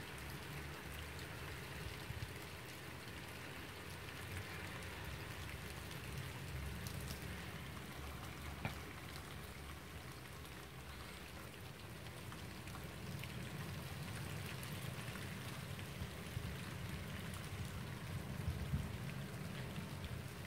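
Steady light rain falling, with scattered faint drop ticks, over a low uneven rumble.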